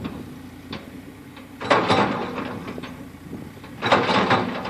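Excavator working at a trellis post, its engine running with a steady low hum, with two loud noisy mechanical bursts about two seconds apart.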